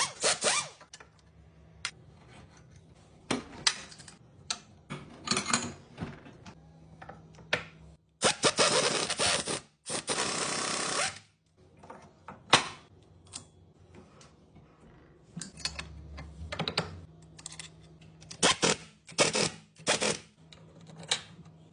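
Hand tools clicking and knocking against metal parts of a Toyota alternator under repair, in irregular strokes, with a hiss lasting about three seconds partway through.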